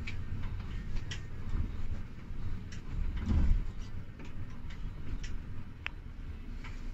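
Low rumble of an intercity coach heard from inside the cab as it moves slowly, with scattered irregular ticks and clicks and a heavier low thump about three and a half seconds in.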